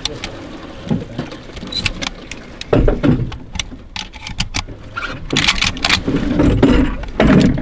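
Handling noise: irregular clicks, knocks and rustles as gear is moved about, over a low rumble, with louder bursts about three seconds in and again in the last two seconds.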